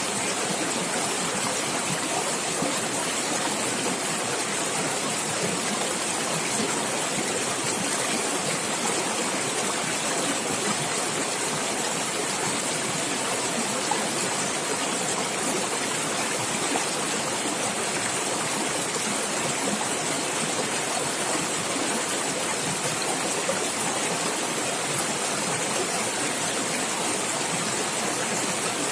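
Running water in a natural stream, a steady gurgling rush with no breaks.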